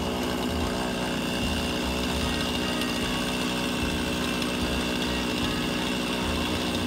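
A motor engine idling steadily, a constant hum that holds one pitch throughout.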